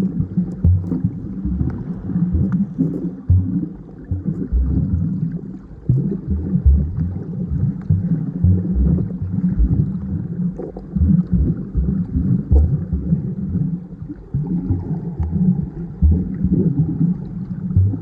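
Muffled sea water sloshing and thudding, with irregular low knocks and the upper range cut off, as when water moves around a camera at or under the surface.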